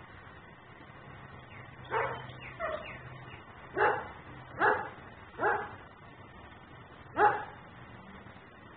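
German shepherd barking six times at uneven intervals over about five seconds, the second bark weaker than the rest.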